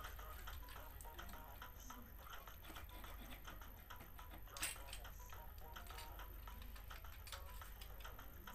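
A small metal file scraping and clicking on a plastic toothbrush handle in short, irregular strokes, with one louder click about halfway through.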